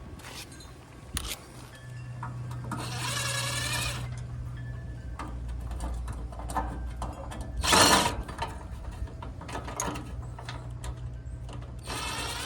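Small motor whirring in short spells over a steady low hum as screws are backed out of a gas grill's control panel, with one loud clunk about eight seconds in.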